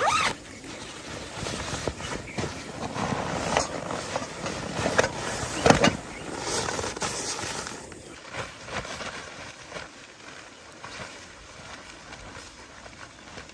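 Tent being set up: irregular rustling and handling noise with a few sharp knocks, busiest for the first eight seconds or so, then fainter.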